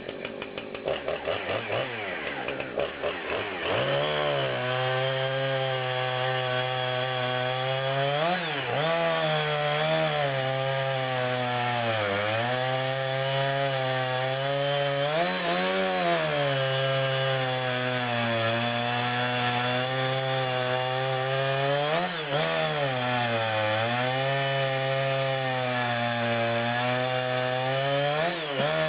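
Husqvarna 455e Rancher two-stroke chainsaw cutting wood at high throttle, its engine note held down under load with a brief rise and fall about every seven seconds. The first few seconds are quieter and rougher before the saw settles into a steady cut.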